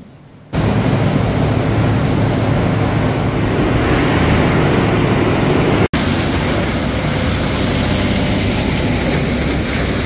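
Loud, steady noise of wood-chip processing machinery running on a biochar production line (conveyors and a drum wood chipper), with a low hum underneath. The noise starts suddenly about half a second in and breaks off for an instant just before the middle.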